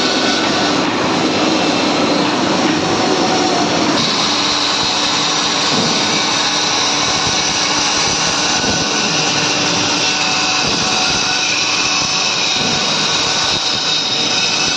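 Woodtech HB-600R band saw running, its blade cutting a curve through a wooden board: a steady, loud machine noise.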